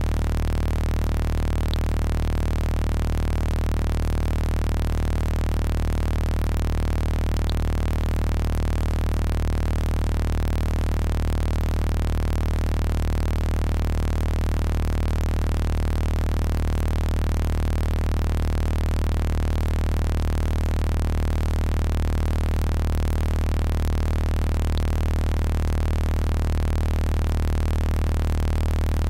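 Synthesized sound-healing frequency tones generated from a voice sample: a strong, deep, steady hum with a cluster of fainter steady tones above it over a soft hiss, unchanging throughout.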